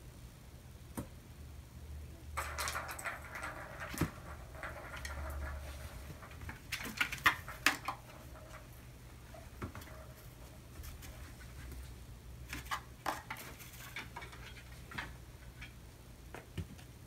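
Kittens playing on a laminate floor: scattered light patter of paws, scuffs and taps, with a few sharper knocks about seven seconds in.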